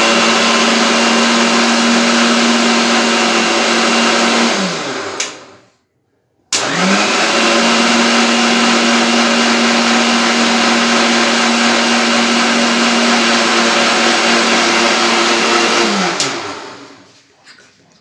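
Electric kitchen mixer-grinder blending a powdered shake with water: a steady motor hum with a high whine. It winds down about five seconds in, stops briefly, starts up again and runs until it winds down near the end.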